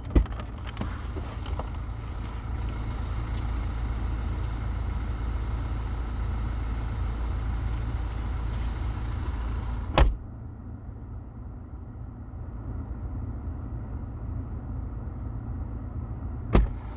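BMW F11's 2.0 four-cylinder diesel engine idling steadily, with sharp car-door thumps just after the start, about ten seconds in and near the end.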